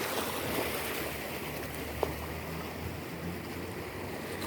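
Sea surf washing on the shore, a steady noisy wash with low wind rumble. A single faint click about two seconds in.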